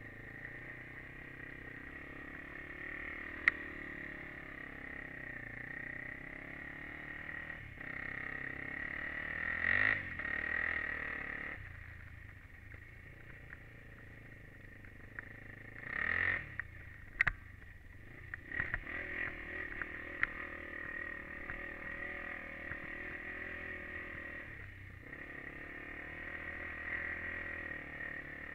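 Honda 400EX quad's single-cylinder four-stroke engine running as it rides through snow, its revs swelling louder twice, about a third of the way in and again past halfway. A few sharp knocks stand out over it.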